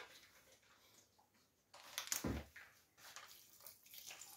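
Faint handling noises around a bowl at a steel sink: a single dull knock about two seconds in, then light scattered clicks and rustling.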